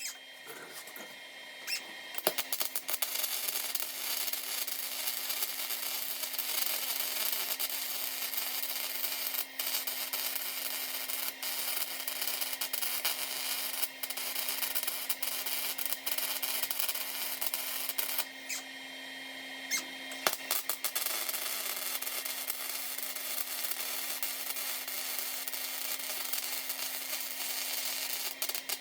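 Welding on the car body's sheet-metal underside: a steady crackling sizzle of the welding arc that drops out briefly near the start and again about two-thirds of the way through, over a steady low hum.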